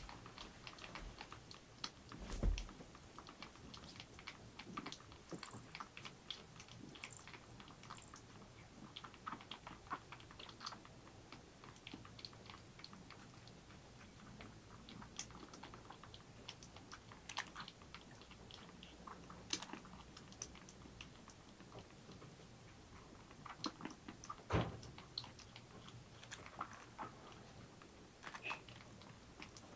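Seven-week-old kitten suckling milk from a feeding bottle: a steady run of small wet clicks and smacks from its mouth on the teat. Two louder knocks stand out, a couple of seconds in and again about twenty seconds later.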